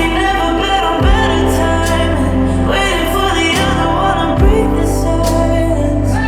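Pop song with sung vocals over a steady bass and soft drum hits.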